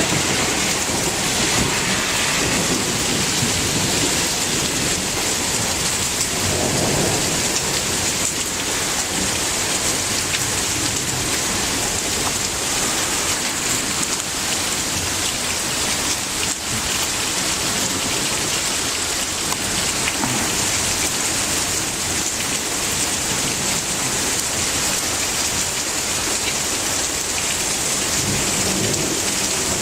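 Heavy thunderstorm rain falling steadily on wet surfaces, an even hiss, with low rumbles of thunder coming and going beneath it.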